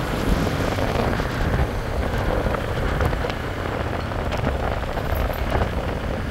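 Steady street traffic noise: vehicles running, a low rumble under a broad hiss, with a few faint clicks and knocks.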